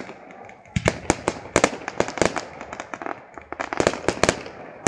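Fireworks display: an irregular run of sharp bangs and crackles from bursting shells, thickest about a second in and again near the end.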